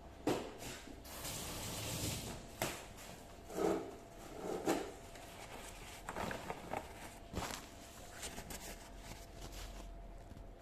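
Faint clicks, knocks and rustles of someone moving about close to the microphone, with a short hiss about a second in.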